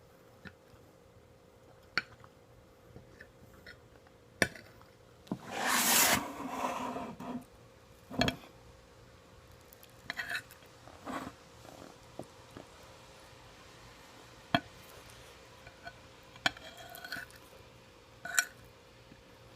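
A spoon clicking against a plate now and then while omurice is eaten, with quieter eating and handling noises between. A louder noise lasting about two seconds comes about five and a half seconds in.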